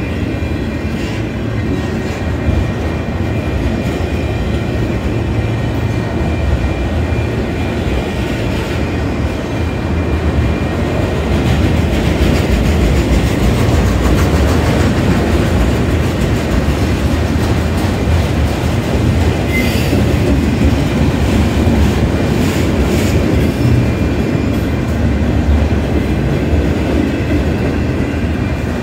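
Autorack freight cars rolling past close by: a loud, steady rumble of steel wheels on rail with occasional sharp clicks and a faint high steady squeal. The rumble grows louder about eleven seconds in.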